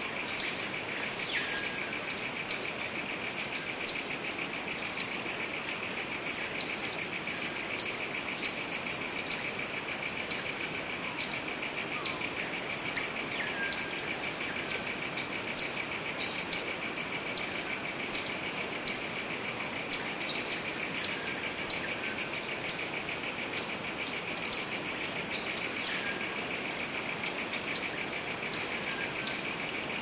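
Rainforest canopy ambience: a steady, high insect drone, with short, sharp bird calls falling in pitch that come every second or so throughout.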